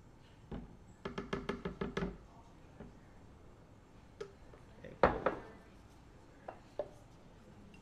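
Knocking and clatter while black soy sauce is measured into a blender cup: a quick run of about seven knocks a second lasting about a second, a few light taps, and one loud sharp knock about five seconds in.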